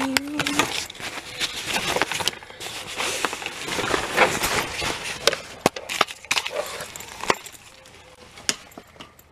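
A soft fabric suitcase being handled: rustling of its fabric, straps and zippers with scattered sharp clicks and knocks, busiest in the middle and dying down near the end.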